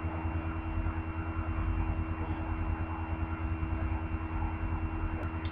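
Steady low electrical hum with a faint hiss underneath, and a single light click near the end.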